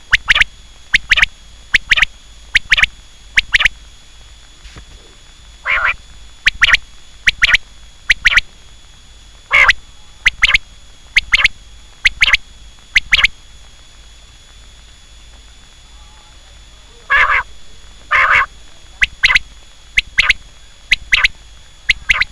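Quail calling in series of short, sharp notes, roughly one to two a second, each series opening with a longer, lower note, with pauses of a few seconds between series.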